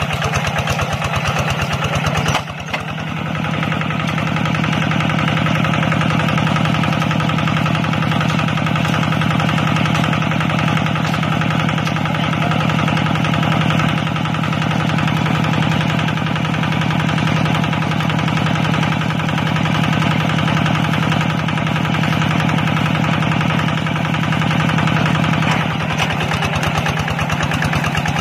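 Two-wheel walking tractor's single-cylinder diesel engine running steadily under load as it ploughs wet soil, with a fast, even beat. The level dips briefly about two seconds in.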